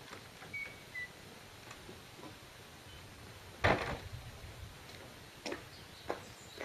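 A quiet scene with scattered small clicks and ticks. A louder knock comes about three and a half seconds in as a glass door opens, followed by a couple of light footsteps on stone paving.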